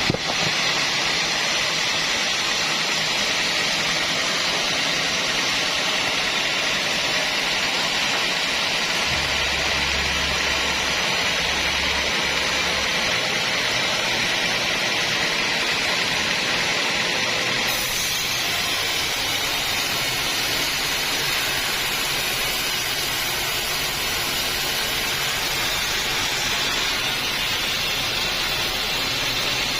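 Sawmill bandsaw cutting through an acacia log, a steady, even hissing whine of the blade in the wood. Its tone shifts slightly about two-thirds of the way through.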